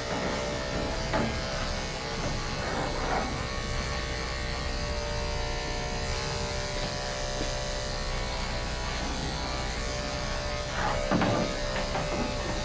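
Electric dog-grooming clippers running with a steady buzzing hum, with a few short scrapes or knocks of handling near the end.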